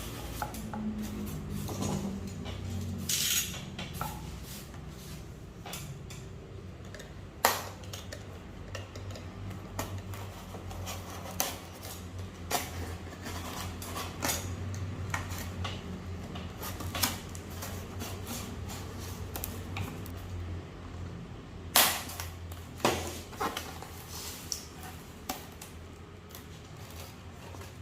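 Scattered clicks, clinks and knocks of hard objects being handled and set down, two of them sharper and louder, over a steady low hum.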